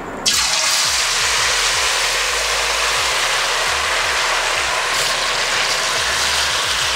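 Marinated potato strips dropped into hot oil, which bursts into a loud, steady deep-frying sizzle that starts suddenly a moment in.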